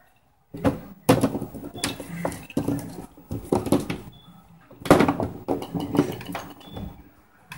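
Plastic knocks and rattles of golf balls and the hard plastic putting-mat base as a kitten paws and bats at them, a string of irregular sharp clacks with a few louder hits.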